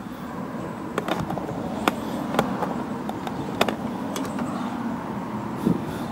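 Several separate sharp clicks and light taps from a cordless ratchet being handled against a snow blower's auger housing, over a steady background rumble.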